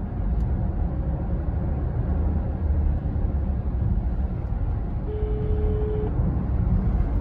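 Road and engine noise inside a moving car's cabin: a steady low rumble. A short steady tone sounds for about a second, about five seconds in.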